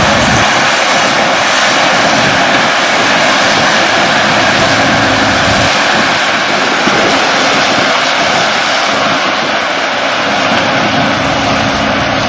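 Excavator's diesel engine running steadily and loudly close by.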